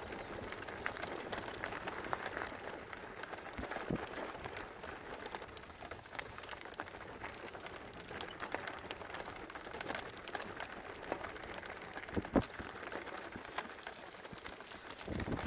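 Folding bicycle tyres crunching over a gravel track, a steady crackle of small stones clicking and rattling, with a sharper knock about twelve seconds in.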